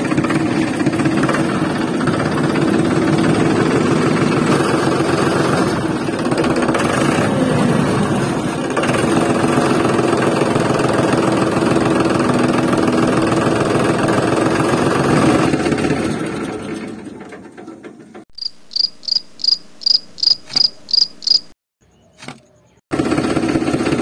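Tractor engine running steadily, fading out about sixteen seconds in. It is followed by a run of about ten short high-pitched chirps, about three a second, then a short pause before the engine comes back near the end.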